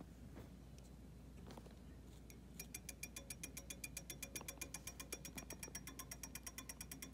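Reed switch of a homemade magnetically suspended pulse motor clicking as the rotor magnets pass, with the motor driven from a 9-volt battery. A few faint clicks at first, then from about two and a half seconds in a fast, even run of sharp clicks, about eight to ten a second and gradually quickening as the rotor speeds up.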